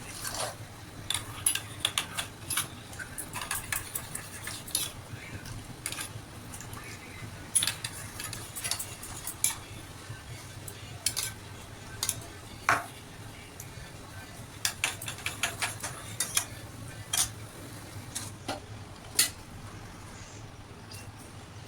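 Kitchen utensils clinking and knocking against dishes: irregular sharp clinks, in clusters, over a low steady hum.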